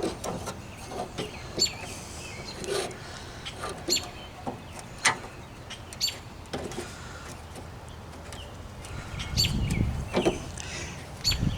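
Scattered light clicks and taps of hand work on a Jeep Wrangler YJ tailgate latch as a small screw is started a couple of turns into it, with a brief low rumble about nine seconds in.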